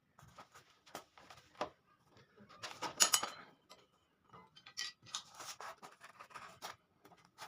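Irregular clicks and scrapes of a rusty metal sword being handled and worked on, with a louder stretch of scraping about three seconds in.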